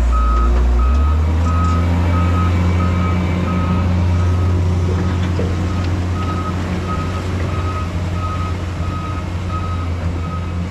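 Reverse alarm of a heavy diesel vehicle beeping at about two beeps a second, one steady high tone, over the engine's steady low running.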